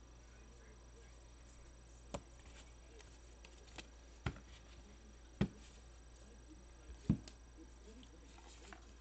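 Baseball cards being handled: four sharp taps and a few lighter clicks, spaced a second or two apart, over a low steady hum.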